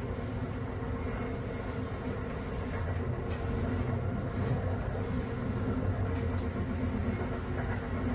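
Amtrak Northeast Regional train running along the track, heard from on board: a steady rumble of wheels on rail.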